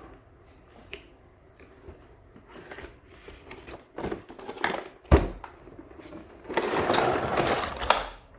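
Handling noises from unboxing a boxed PVC statue: scattered small clicks and knocks, one sharp knock about five seconds in, then about a second and a half of rustling and scraping of packaging near the end.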